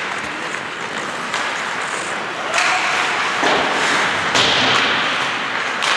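Ice hockey play: a steady scraping hiss of skates on the ice, with sharp clacks and thuds of sticks, puck and boards. The scraping swells about two and a half seconds in and again past four seconds.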